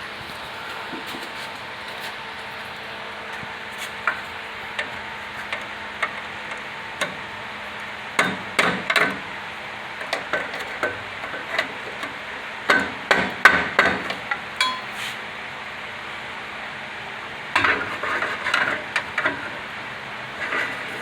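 Hand tools knocking and clinking against metal, with scattered single clicks and three clusters of quick strikes a few seconds apart.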